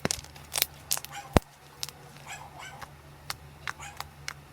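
A series of sharp clicks and pops from slime being handled: several close together in the first second and a half, then a few more spaced out. A faint short pitched call comes about two and a half seconds in.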